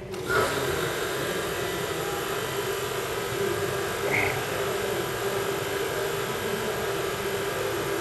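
A steady machine running noise, like a fan or blower, that starts suddenly and holds level, with one brief high chirp about four seconds in.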